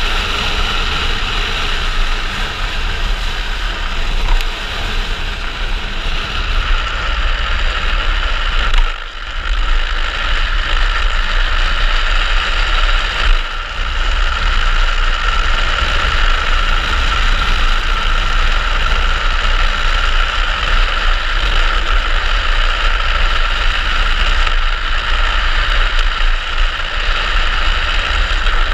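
Steady rush of wind buffeting a helmet-mounted camera, over the rumble of a speed trike's wheels rolling fast on asphalt on a downhill run. The noise dips briefly twice, about nine and about thirteen and a half seconds in.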